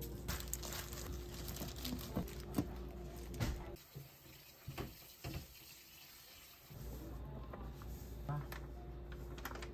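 Salt shaken from a plastic shaker over a stainless steel bowl of seasoned green onions, a run of light taps and clicks over a steady low kitchen hum. The hum drops away about four seconds in and returns near the end with a few soft clicks.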